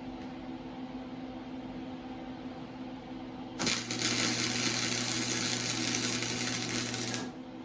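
Electric welding arc burning steadily with an even crackling hiss for about three and a half seconds, starting about halfway in and cutting off sharply, with a steady hum under it.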